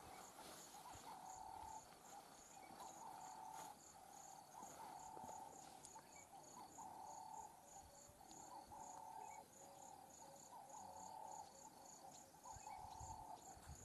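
Faint insect chorus: a high chirp pulsing about two or three times a second over a lower buzzing call that comes and goes in short spells.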